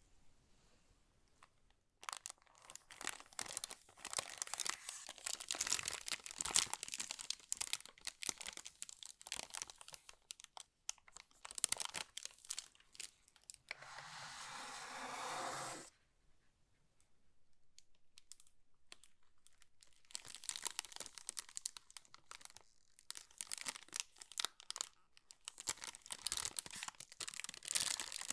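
Packaging being opened and handled: irregular crinkling and crackling of wrapping, with one steady tearing sound of about two seconds near the middle.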